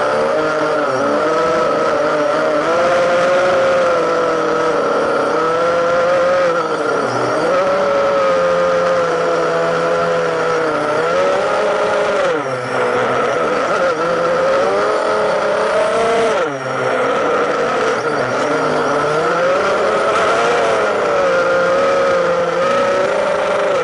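Drone's electric motors and propellers whining as heard from the onboard camera, the pitch rising and falling as the throttle changes, with a brief dip about twelve seconds in and a quick drop and recovery about sixteen seconds in.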